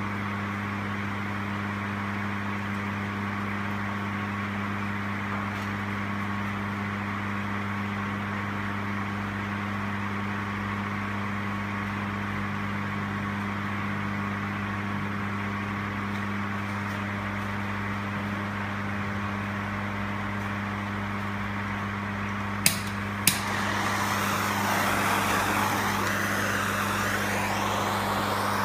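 Steady workshop machine hum with a constant electrical drone and hiss. Near the end come two sharp clicks, followed by a louder rushing hiss.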